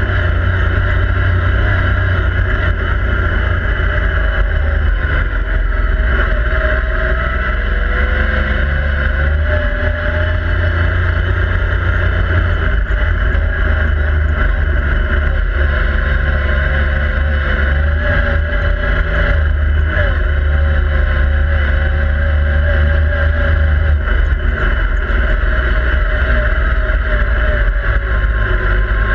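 Yamaha YXZ1000R SS side-by-side's three-cylinder engine running steadily under way, heard from inside the open cabin with steady wind and road noise. The engine note wavers gently up and down as the throttle changes.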